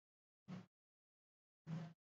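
Near silence, broken twice by short, faint bursts of low hum and hiss, about half a second in and near the end.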